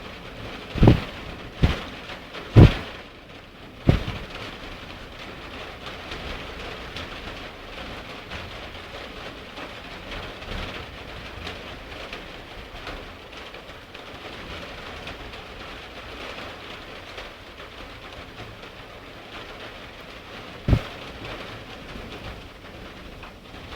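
Heavy thunderstorm rain falling steadily, with a cluster of sharp thumps in the first four seconds and one more near the end.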